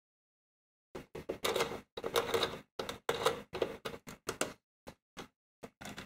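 Hands handling BN-1-003 signal lanterns at their reflector heads: a run of irregular clicks and scraping rustles. They start about a second in and thin out to a few separate clicks near the end.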